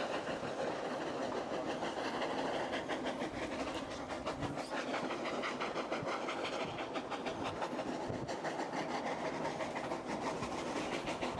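Steam-hauled train heard from inside a passenger carriage: steady running noise with a fast, regular beat, as the locomotive chugs up a steep gradient.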